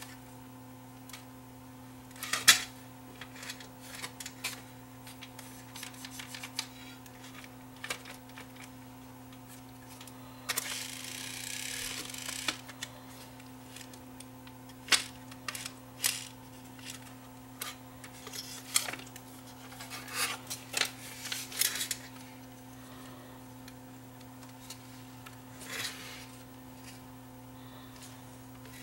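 Plastic clicks, knocks and rattles as a DVD player's disc loader mechanism and circuit board are handled and lifted apart, with a sharp snap about two seconds in and a two-second scrape near the middle. A steady low hum runs underneath.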